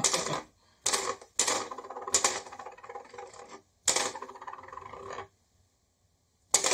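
Plastic mechanism of an old 'Run Yourself Ragged' toy game rattling and clicking as it is played, in about five bursts of up to a second and a half each. There is a short pause, then a new burst starts near the end.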